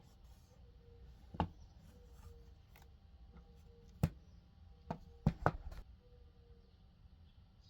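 Five sharp clicks or knocks, the last three close together, over a faint low hum.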